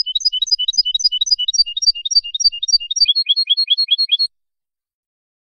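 A finch singing in the malagueño song style from a tutor recording made for teaching cage birds to sing: one phrase of quick whistled notes repeated about four times a second, changing about three seconds in to a faster, lower falling note that repeats until the song cuts off abruptly.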